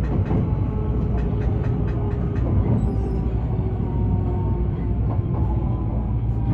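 Electric limited express train, heard from inside near the front, running slowly into a station under braking. It makes a steady low rumble, with a faint motor whine slowly falling in pitch and light clicks from the wheels over the track.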